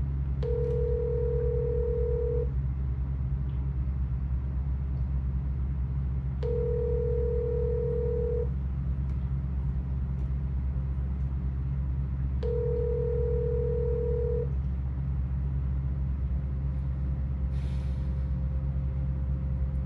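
Telephone ringback tone of an outgoing call: three rings, each about two seconds long and six seconds apart, the called number ringing unanswered. A steady low hum runs underneath.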